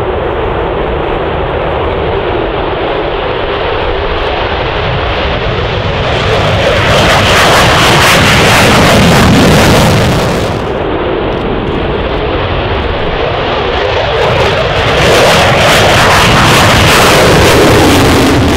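F-15E Strike Eagle fighter jets taking off at full power: loud, continuous jet engine noise that swells louder twice, about six seconds in and again from about fifteen seconds in, as each jet passes.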